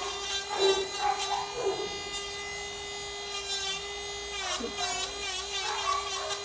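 Small motor of an electric dog-grooming tool whirring steadily with a high, even whine; its pitch dips briefly just past halfway, then recovers.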